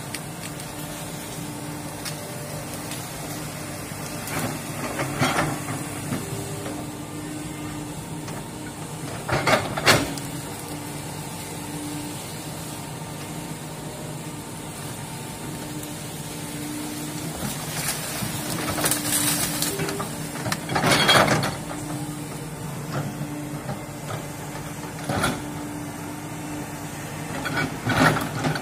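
Komatsu hydraulic excavator's diesel engine running steadily as it works in brush, with about six short loud noisy bursts spread through.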